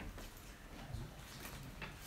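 Quiet classroom room tone: a low steady hum with a few faint scattered clicks and knocks, the clearest about a second in and another near the end.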